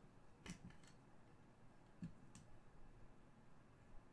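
Near silence, broken by a few faint clicks of plastic card holders being handled on a tabletop.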